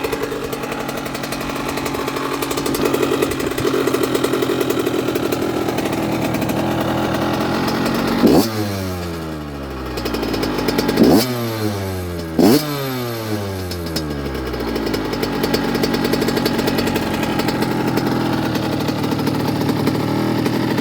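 Yamaha YZ85 big wheel's 85cc two-stroke single-cylinder engine, about 12 hours into a full rebuild, idling with a rattly burble. It is blipped three times, once about eight seconds in and twice more close together a few seconds later; each time the revs shoot up and fall straight back to idle.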